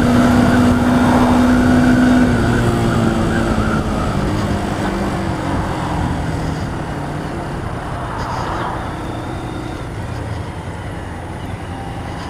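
Motorcycle engine running on the move, over wind and road noise. A steady engine note drops away about two seconds in, and the sound then eases off gradually.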